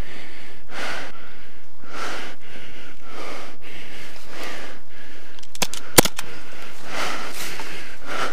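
Rhythmic crunching footsteps through dry fallen leaves and brushy undergrowth, with a few sharp clicks, the loudest about six seconds in.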